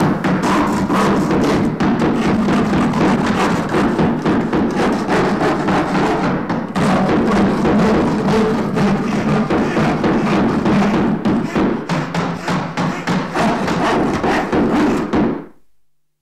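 Background music with a dense percussive beat, fading out to silence near the end.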